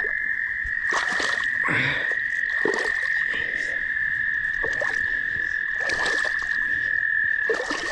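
Frogs calling in a steady, high-pitched continuous trill, with a few short noisy bursts over it.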